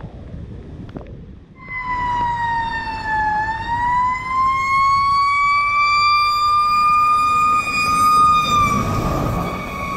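Fire truck siren wailing, starting about a second and a half in: the tone falls, then slowly rises and holds. Near the end its pitch drops slightly as the truck's engine and road noise swell.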